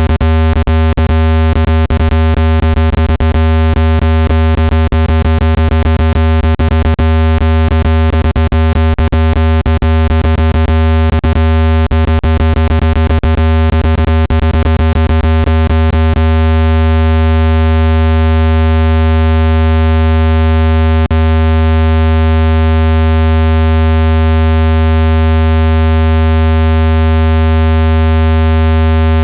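Loud, steady low-pitched electronic tone with many overtones, played to shake trapped water out of a phone speaker. It crackles with irregular clicks for about the first half of the clip, then holds smooth and unbroken.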